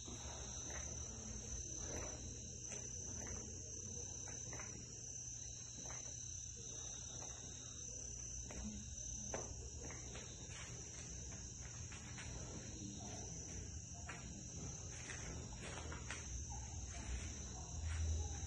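Crickets chirring steadily in a high continuous trill. Faint scattered taps and knocks come from a barefoot person doing push-ups on a tiled floor, with heavier low thuds near the end as he gets to his feet.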